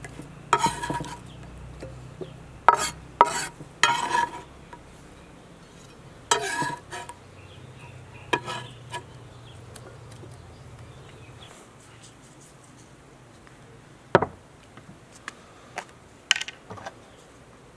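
A kitchen knife chopping cucumber on a wooden cutting board, a few irregular knocks in quick clusters, and the blade scraping the pieces into a glass bowl. Fainter clicks and knocks come near the end.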